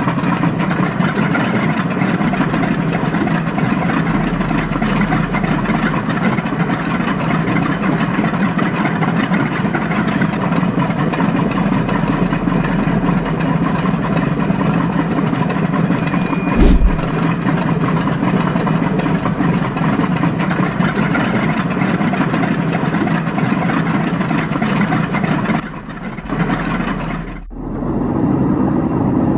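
Aircraft engine running steadily and loudly after start-up. There is a short sharp sound about two thirds of the way through, and near the end the sound dips briefly and gives way to another, duller engine sound.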